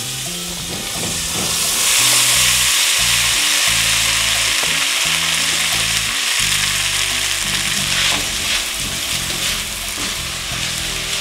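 Drained spaghetti sizzling in hot melted butter in a pot, the sizzle swelling about two seconds in as the pasta goes in, then stirred with a spatula. Soft background music underneath.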